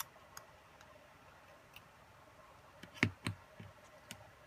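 Light clicks of a drone camera gimbal's small plastic and metal parts being handled, then a few louder clicks and dull knocks about three seconds in as the gimbal assembly is set down on a cutting mat.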